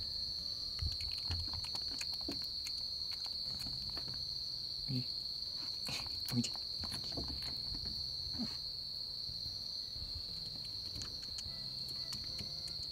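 A steady high-pitched insect drone that never stops, with scattered soft clicks and taps over it.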